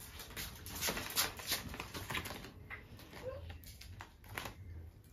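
Handling noise from a stainless steel wire fryer basket being turned over and fitted with its handle: a scatter of light clicks, rattles and rustles.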